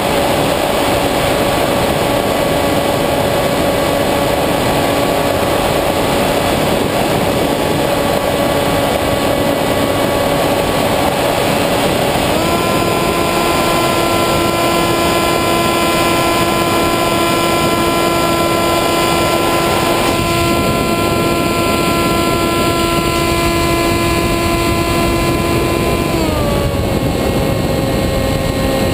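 Multiplex EasyStar II's electric pusher motor and propeller whining steadily in flight, with wind rush, as heard from the onboard GoPro. The pitch steps up about twelve seconds in as the motor speeds up, then drops back near the end.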